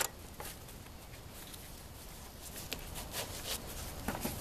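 Folding utility knife and its blade case being handled. A sharp click right at the start and a smaller one about half a second in, then scattered faint clicks and rustling in the second half.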